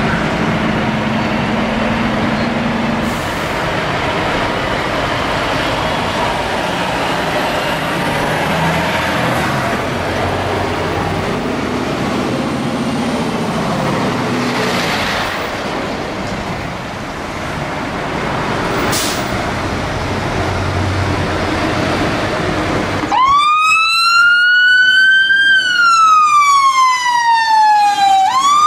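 A Scania P280 fire engine's diesel engine runs as the truck pulls out of its bay. About 23 seconds in, its siren starts loudly on a wail, sweeping up in pitch, falling slowly, then rising again near the end.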